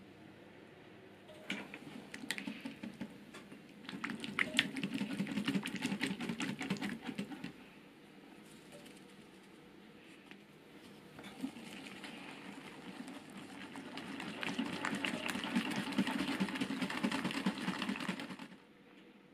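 Wire whisk beating egg yolks and sugar in a glass bowl: quick rattling clicks of the wires against the glass. It comes in two spells, a shorter one a few seconds in and a longer one in the second half that stops shortly before the end.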